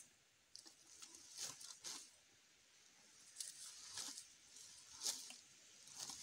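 Komodo dragon tearing and biting at a young goat's carcass: faint, irregular crunches and rips, about one a second.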